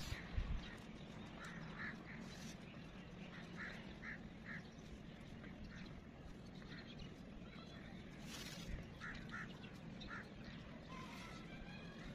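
Faint bird calls, short and often two in quick succession, recurring every second or so over a steady low background hum. A soft thump about half a second in.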